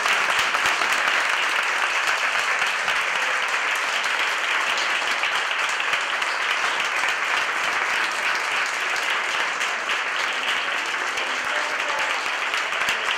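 Audience applauding in a steady, unbroken round of clapping.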